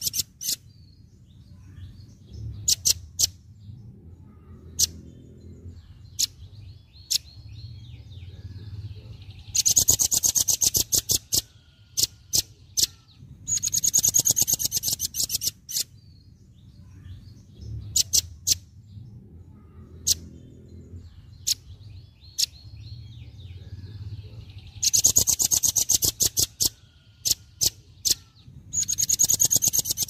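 Velvet-fronted nuthatch calling: four bursts of rapid, high, sharp chips run together into trills about two seconds long, with single sharp chips scattered between them.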